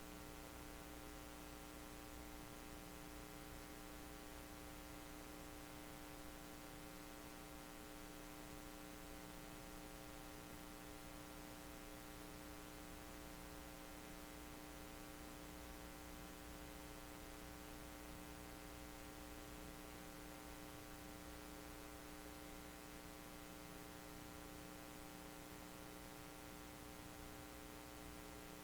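Near silence with a faint, steady electrical hum made of many even tones over light hiss, unchanging throughout.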